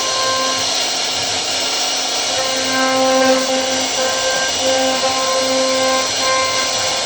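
CNC router spindle running and cutting wood: a steady hiss with a tone that comes and goes as the bit works.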